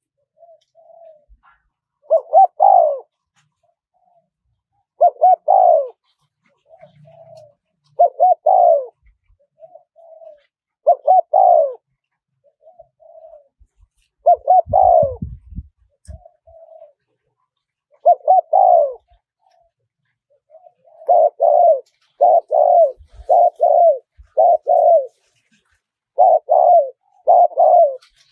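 Spotted dove cooing: repeated phrases of a soft short note followed by a louder double coo. They come every two to three seconds at first, then quicken to about one a second in the latter part.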